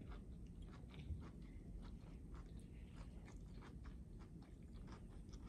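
A child chewing a mouthful of food: faint, irregular small wet clicks and smacks of the mouth.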